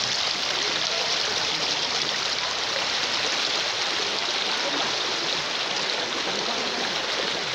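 Swift, swollen floodwater rushing and churning past a riverbank: a steady, even rushing.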